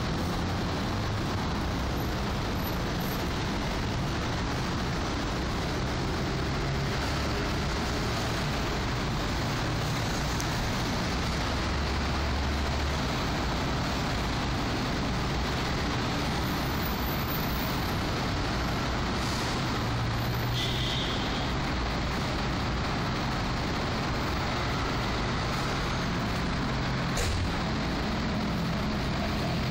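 Steady road traffic noise: a constant hiss and low rumble of vehicles passing on a city street.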